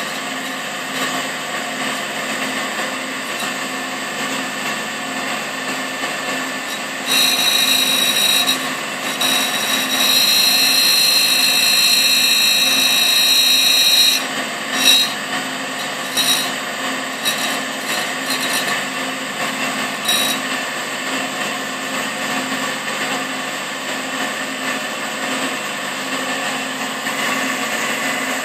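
Russian-made clone of a Cincinnati No. 2 tool and cutter grinder running with a steady hum while its wheel grinds the flutes of a worn end mill. A loud, high-pitched grinding whine starts about a quarter of the way in and lasts about seven seconds, followed by a few brief touches of the wheel, then only the machine running.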